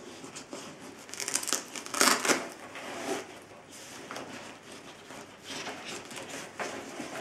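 Nylon camera sling bag being handled: fabric rustling and scraping as a hand works inside its padded, divided compartment, with a louder rasping burst about two seconds in.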